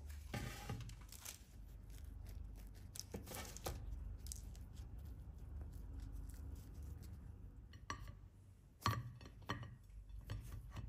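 Kitchen handling noises while finishing buns on a baking tray: scattered light taps and clicks with soft rustling, the sharpest click about nine seconds in.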